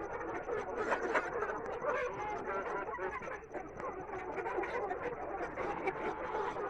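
A flock of black Australorp chickens clucking and chattering, many birds calling over one another without a break.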